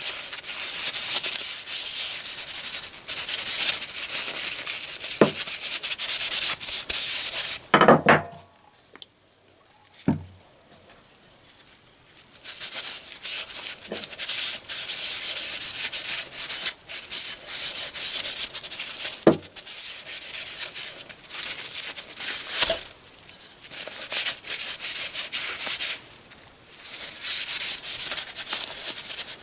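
Crumpled paper towel rubbed hard back and forth over a steel hatchet head, a dry scrubbing hiss in long stretches. It stops for a few seconds about eight seconds in, with a couple of knocks as the hatchet is handled.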